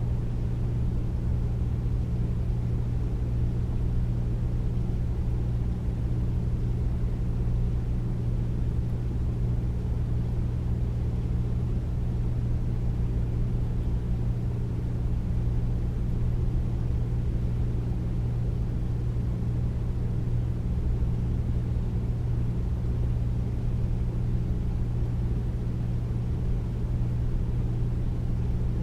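Air conditioner running steadily: a deep, even hum with a low drone and airy noise, unchanging throughout.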